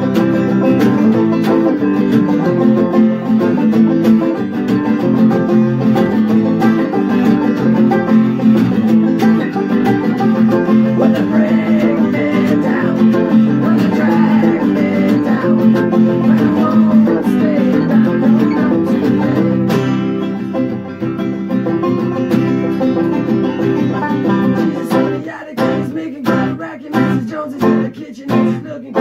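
Banjo and acoustic guitar playing a folk song together, dense and steady at first; about twenty seconds in the playing thins out, and near the end it turns into separate strummed chords.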